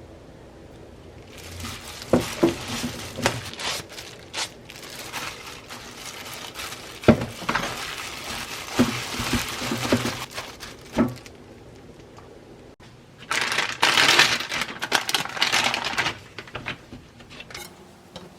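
Kitchen handling sounds: crinkling and rustling, as of plastic packaging or food being worked, broken by sharp clicks and light knocks of utensils and containers, with the longest crinkly stretch near the end.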